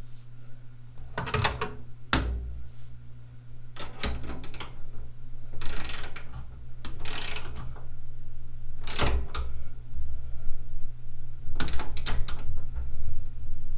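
Short metal clanks and rattles from steel tool-cart parts being handled and fitted, coming in about seven separate bursts a second or two apart over a steady low hum.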